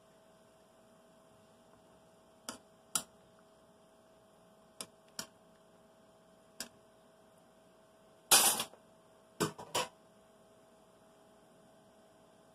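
A metal skimmer knocking and scraping against a saucepan while stirring boiling chilies and cauliflower: a few sharp scattered clicks, then a louder clatter a little past the middle and two more knocks, over a steady faint hum.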